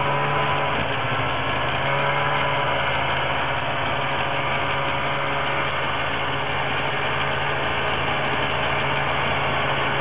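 Snowmobile engine running steadily as it is driven across the snow, a continuous drone with only slight shifts in pitch.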